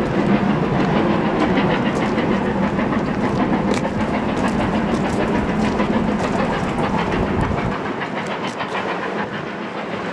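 A train running on the line, its wheels clicking over the rail joints in a steady rhythm; the deep rumble drops away about eight seconds in.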